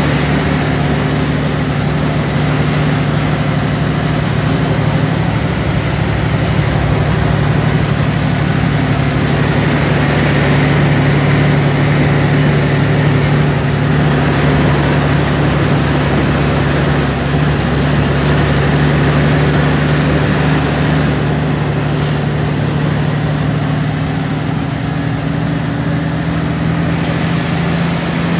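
Cummins ISX15 diesel engine of a Kenworth T800 tractor-trailer running steadily at an even engine speed, with a thin high whistle above it that rises a little near the end.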